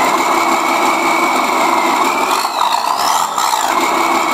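Simulated diesel truck engine sound from a Benedini TBS Mini RC sound module, played through a small desktop speaker and running steadily. About halfway through its pitch climbs as if revving, with a short sharp noise near the top.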